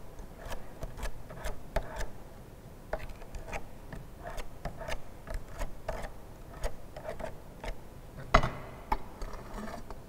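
Metal spatula scraping and tapping on a glass plate as wet soil is worked into a smooth paste for a liquid-limit test: an irregular run of short clicks and scrapes, with one louder knock about eight seconds in.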